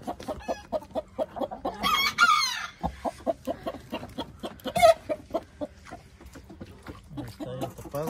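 Chickens clucking rapidly and steadily, about four clucks a second. A loud, higher call that falls in pitch and lasts about a second comes about two seconds in, and a sharp squawk comes near five seconds.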